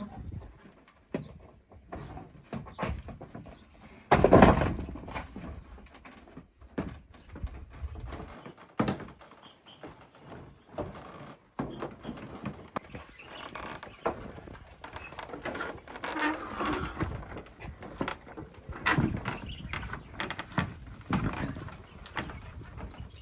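Irregular knocks and clatter from work on a wooden shed roof, with one loud knock about four seconds in.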